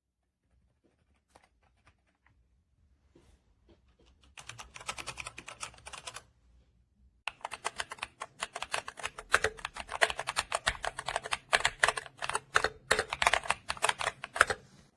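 Typing on a mechanical keyboard fitted with Akko V3 Penguin silent tactile switches. A few faint key presses come first, then a short burst of typing. After a brief pause, fast continuous typing runs on, louder.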